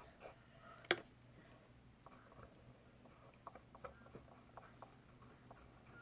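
Faint rustling and small ticks of paper being handled, with one sharper click about a second in.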